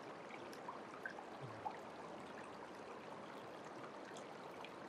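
Shallow creek water running steadily through and around a metal sluice box, with small scattered trickles and droplet ticks.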